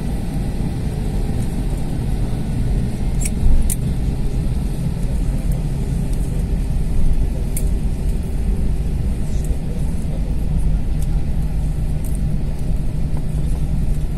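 Steady low rumble of cabin noise inside an Airbus A321 on the ground after landing, with a few sharp clicks, two close together a few seconds in and another about halfway through.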